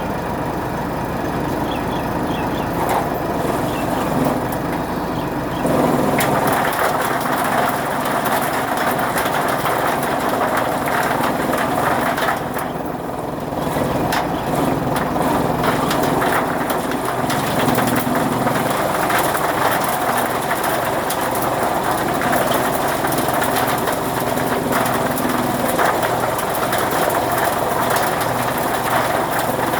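Fodder chaff cutter machine running steadily with a mechanical drone and many small clicks and knocks. It gets louder about six seconds in and dips briefly a little before halfway.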